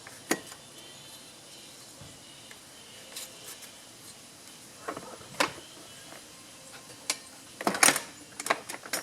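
Scattered light clicks and metallic knocks of tools and parts being handled on a small mower engine while a spark tester is hooked up, with a quicker cluster of clatter near the end.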